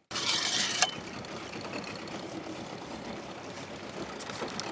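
Boat outboard motor running steadily at low trolling speed, after a short loud hiss in the first second.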